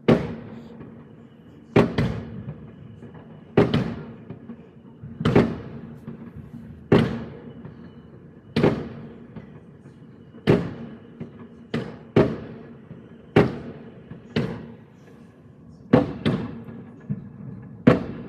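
Fireworks going off outside, heard from inside a room: a dozen or so loud, sharp bangs, one every second or two, each trailing off in an echo.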